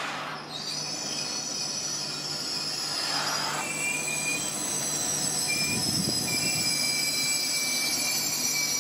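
SBB RABe 503 (ETR 610) tilting train rolling slowly into the station with a steady high-pitched squeal from its running gear, in two tones, over the low rumble of the train, growing louder as it draws near.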